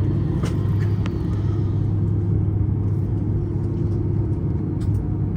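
Steady low rumble and hum of cabin noise inside an Airbus A330 airliner before departure, with a few faint clicks.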